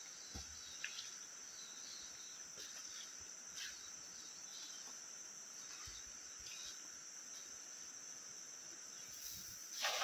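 Steady high-pitched drone of a rainforest insect chorus. Right at the end comes the splash of a cast net landing on the river.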